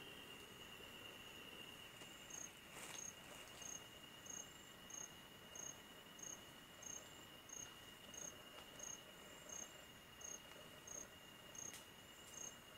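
Night insects: one keeps up a steady high trill, and from about two seconds in another adds short high chirps at an even beat, about three every two seconds.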